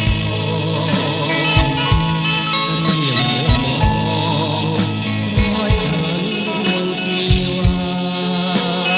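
Background music: a song with a steady drum beat and sustained instrumental lines.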